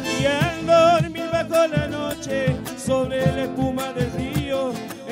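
Live folk band playing: strummed acoustic guitars, drums and percussion keeping a steady beat, and an accordion, with a wavering sung or reed melody on top.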